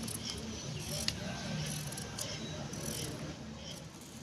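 Small kitchen knife peeling the skin off a raw potato by hand, making light scrapes and small clicks, with a sharper click about a second in.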